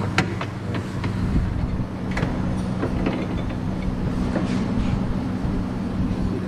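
Steady low mechanical hum of the workshop, with a few sharp metallic clicks from hands and tools working a bolt, nut and washer into the frame to fit a bolt-on chassis brace.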